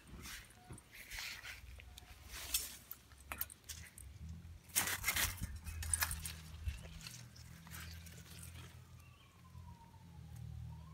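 Brief rustling and scraping noises as leaves are brushed and the phone is handled, louder about two and a half and five seconds in, over a low steady hum. A faint, slowly falling tone comes in near the end.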